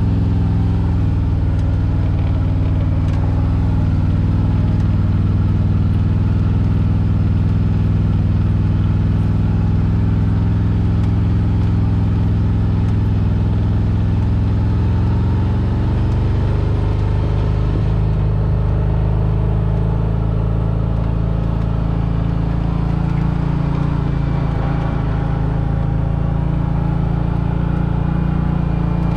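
Can-Am side-by-side UTV engine running steadily under way over sand, heard from the cab; the engine note drops lower about halfway through.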